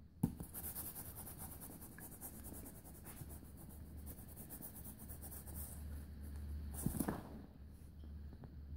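Faint scratchy rubbing on fabric, a quick run of fine ticks, with one louder scrape or knock about seven seconds in.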